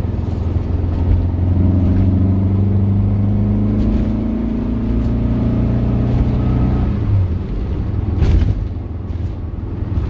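Air-cooled 1.9-litre Volkswagen Beetle flat-four with twin Weber 48 IDF carburettors, heard from inside the cabin while driving. The engine note rises steadily under acceleration for several seconds, then drops sharply about seven seconds in, with a short knock a second later.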